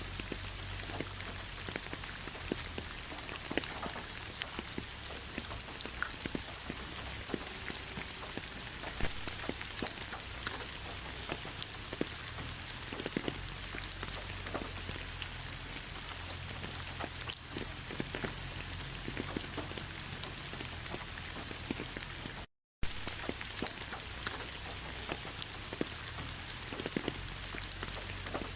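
Autumn rain falling on fallen leaves: a steady patter made of many separate small drop ticks. The sound cuts out completely for an instant about two-thirds of the way through.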